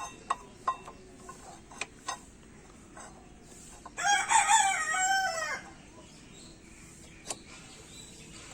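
A rooster crows once, loudly, for about a second and a half from about four seconds in. Before and after it come a few sharp metallic clicks as the cleaned brake pads are fitted back on the bike.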